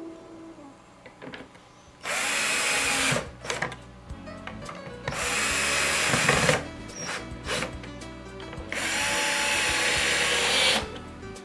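Hitachi cordless drill driving screws through plastic glide clips into a wooden drawer box: three runs of about one to two seconds each, with pauses between, over quiet background music.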